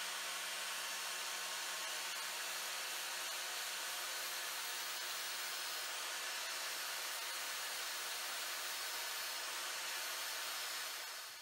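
Ryobi angle grinder running steadily, its disc grinding down weld blobs on a small welded steel part, then fading out near the end.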